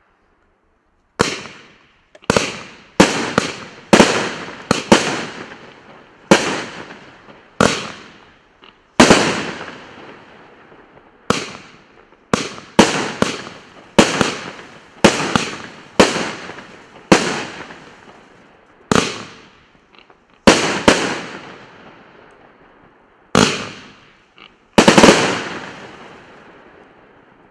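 Consumer firework cake (a 21-shot fan cake) firing its shots one after another at an uneven pace, about twenty sharp reports, some in quick pairs, each dying away over a second or so. The last shot, near the end, is the loudest and rings longest.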